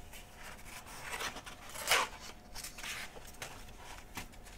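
A page of a picture book being turned by hand: paper rustling, with a sharp swish as the page flips over about two seconds in.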